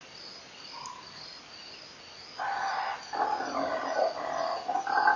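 Crickets chirping at night, then about two and a half seconds in a wild animal starts a loud series of calls, each a pitched call of about half a second to a second, following one after another.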